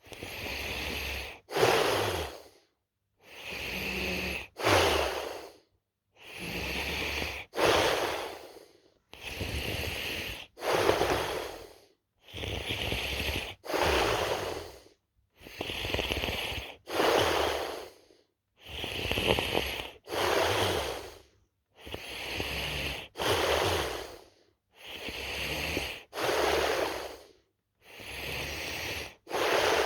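A person snoring in sleep: slow, regular breathing about every three seconds, each cycle a longer, quieter breath sound followed by a shorter, louder one.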